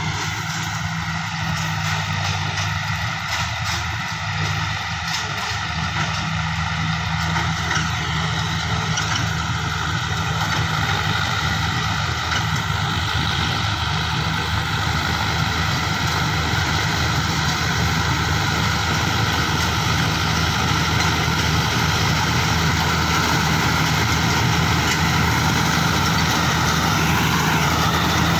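Mahindra Arjun combine harvester harvesting paddy: its diesel engine runs steadily under load with the cutting and threshing gear working, the sound growing gradually louder as the machine comes closer.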